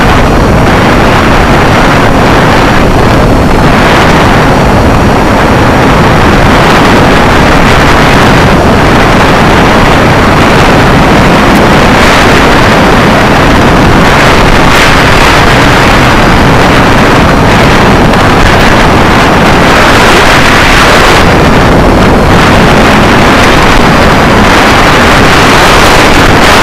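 Loud, steady roar of wind and airflow buffeting the microphone of a camera flying high over the sea, with no distinct tones or separate events.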